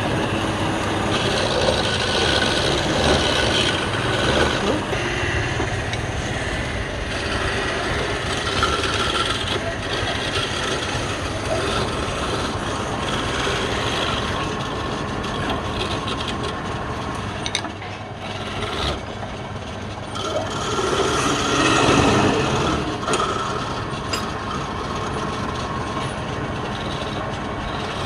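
Wood lathe running with a turning tool cutting the spinning wood, a steady rasping noise that swells louder about three quarters of the way through.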